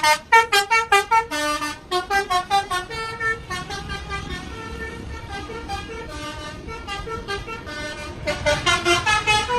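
Telolet bus horns playing quick melodies of short, stepped notes. They are loud at first, fainter for most of the middle, and loud again near the end.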